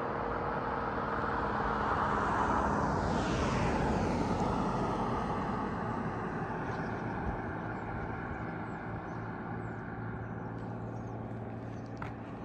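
A car passing close by on the road: its tyre and engine noise swells to a peak about three seconds in, drops in pitch as it goes by, and fades into a steady distant traffic hum.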